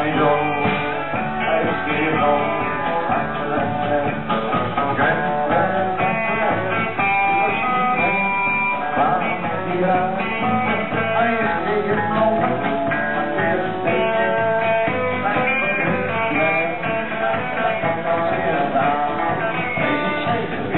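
Live country band with guitars and banjo playing a square-dance tune.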